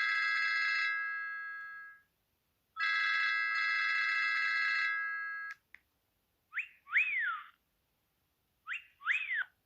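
BenQ Siemens AL21 mobile phone playing ringtone samples: a held electronic chord twice, each about three seconds long and fading, then two pairs of short whistling tones that rise and fall in pitch.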